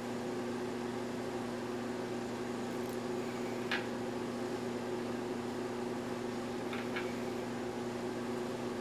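Steady low electrical hum, with a few faint light clicks from the brass clock movement being handled, once about four seconds in and twice near seven seconds.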